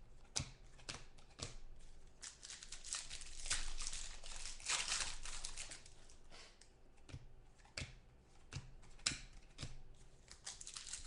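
Football trading cards and their pack wrappers being handled: cards slid and flicked through one after another, with irregular clicks and crinkling, and a longer rustle about three to five seconds in.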